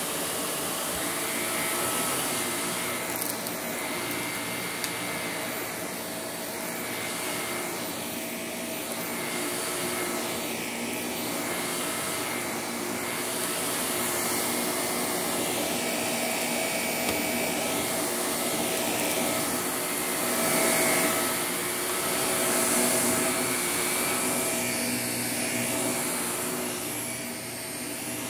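Vacuum cleaner running steadily over carpet, its motor hum swelling and easing as the head is pushed back and forth.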